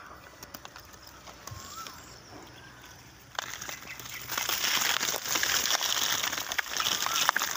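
Close rustling and crackling of coconut palm fronds and coarse salt being handled right at the microphone, quieter at first and much louder and denser from about three seconds in. A bird gives a short chirp early on.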